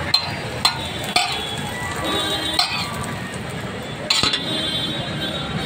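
A metal spatula clinking and scraping on a flat griddle, about five sharp hits, the loudest about four seconds in, over a steady background hum.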